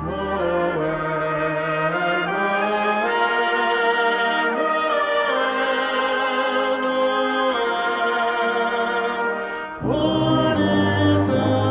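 Brass band playing sustained chords of a Christmas carol arrangement. The low brass is silent for most of the passage; after a brief break near the end, the full band comes back in with the bass.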